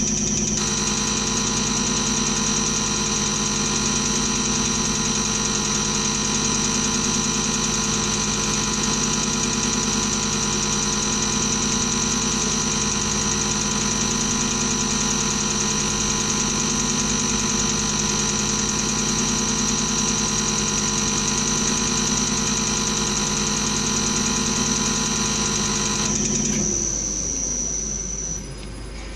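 CRS708D common rail diesel test bench running steadily: drive motor and high-pressure pump with a high whine on top. About 26 seconds in the test run ends and the machine winds down, falling in pitch and fading.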